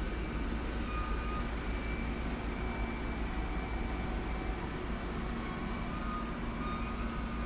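Steady low rumble of a train at the station, with a few faint, short, thin squeaks over it.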